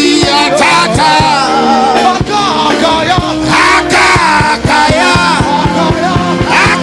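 Live gospel worship music: a band with drums keeping a steady beat under a lead singing voice.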